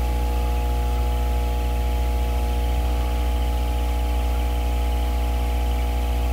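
Steady, unchanging electrical hum of running equipment: a strong low drone with a few higher steady tones and a faint hiss over it.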